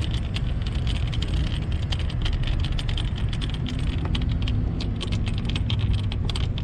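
Quick, irregular clicking and rattling of small plastic and metal parts as an accessory mount is fitted and screwed onto a motorcycle's handlebar area by hand, over a steady low rumble.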